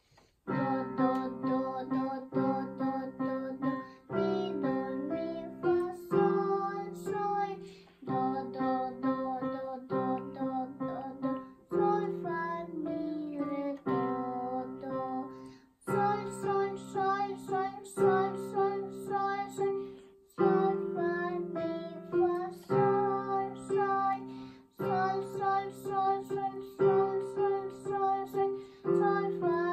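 A young child plays a simple two-handed tune on an electronic keyboard while singing the note names (solfège) along with it. The notes come in phrases of about two seconds with short breaks between them.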